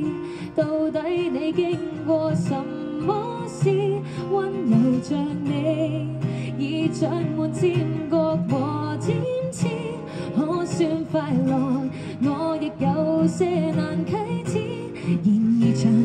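A woman singing a pop ballad live, holding notes with vibrato, over instrumental accompaniment.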